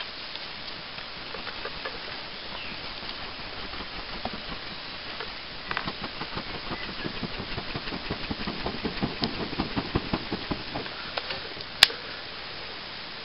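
Small twig fire catching on a piece of charcoal, hissing steadily with soft crackles that thicken after about five seconds, and one sharp snap near the end.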